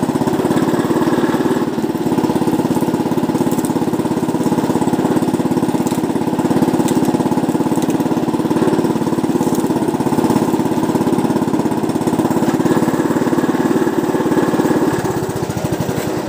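Small engine driving a sugarcane juicer's crushing rollers, running steadily with a rapid pulsing note while a cane stalk is fed through. Its low end changes near the end.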